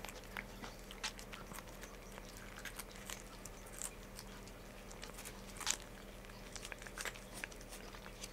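A cat licking paste treat from a squeeze tube: quick, irregular wet clicks of the tongue and mouth.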